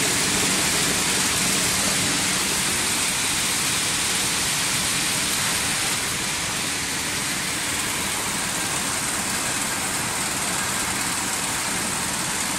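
A T660 high-speed candy forming machine running: a steady, even mechanical whirr with a strong hiss and no separate knocks.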